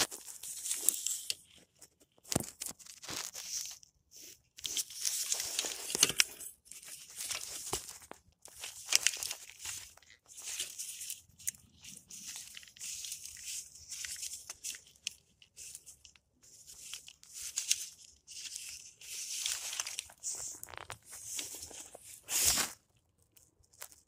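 Scratchy tearing and crinkling of tape and plastic as hands work on a car's engine wiring harness, in irregular bursts with short pauses, and a louder sharp clack about twenty-two seconds in.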